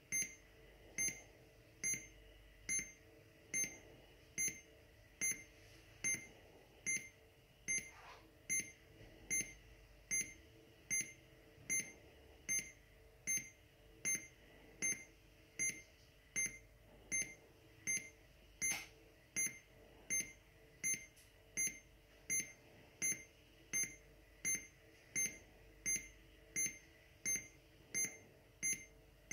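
Airsoft bomb prop's electronic buzzer giving short, high beeps at a steady rate of a little more than one a second. This is the armed countdown ticking toward the prop's 'detonation'.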